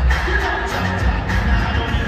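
Music with heavy bass.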